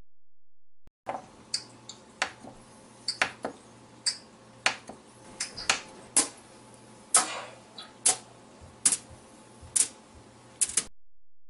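Pats of cold butter set down one by one on a foil-lined baking pan: a series of light, irregular taps and crinkles of aluminium foil, with one longer rustle of the foil a little after seven seconds. It starts about a second in.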